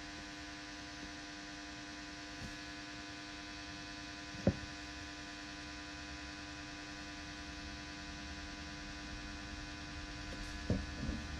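Steady electrical hum, a low buzz made of many even, unchanging tones. A short sharp click about halfway through and another near the end.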